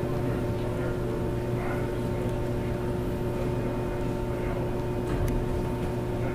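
Steady electrical mains hum with a faint, distant man's voice asking a question off-mic.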